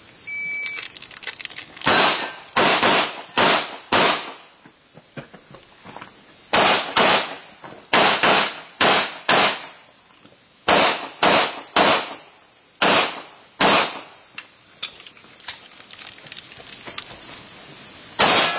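A shot timer's short electronic start beep, then a string of about twenty handgun shots fired in fast pairs and groups with brief pauses between them, as a competitor runs an IPSC stage.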